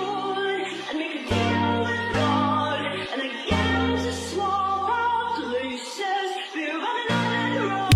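Background music: a song with singing over guitar and sustained bass notes.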